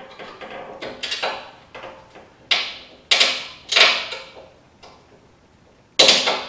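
Flathead screwdriver prying at the metal retaining clip on the top end fitting of a rear-glass lift support strut, giving about half a dozen sharp metal clicks and scrapes. The loudest comes near the end.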